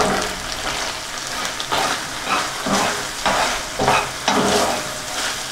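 Tomato paste and a sautéed onion, carrot and sausage mix sizzling in hot oil in a pan while being stirred, with repeated scraping strokes of the utensil, about one to two a second.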